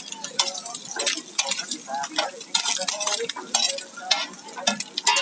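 Steel spatula scraping and clinking on a flat iron griddle, stirring halved boiled eggs in hot oil, in rapid irregular strokes over the sizzle of the frying.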